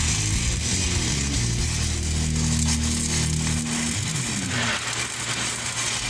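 Stick (shielded metal arc) welding arc crackling and hissing steadily, with background music underneath.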